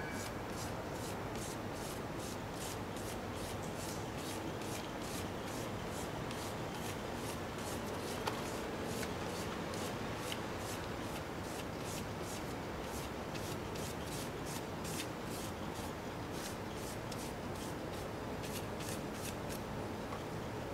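Paper taped over a raised sign on a stone wall, being rubbed by hand to take a rubbing of the emblem and lettering. The strokes are quick and repeated, about three a second.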